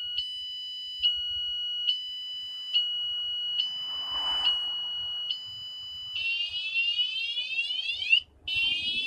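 Wsdcam 113 dB motorcycle vibration alarm going off after the bike is moved: an extremely loud, high piercing tone whose pattern changes about once a second, switching about six seconds in to rapid falling siren sweeps that break off briefly near the end.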